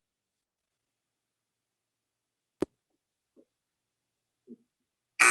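Near silence with a single sharp click about halfway through, then a short, loud electronic buzzer near the end signalling that the answer time is up.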